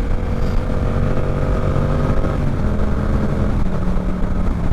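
Yamaha R7's parallel-twin engine running steadily under the rider, with a steady low rumble. Its note shifts a little about halfway through, then holds steady.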